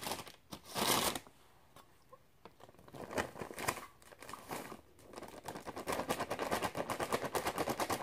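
Plastic bag of pancake mix crinkling and rustling as the dry mix is shaken out into a measuring cup. In the second half the bag gives a fast, even run of crackles.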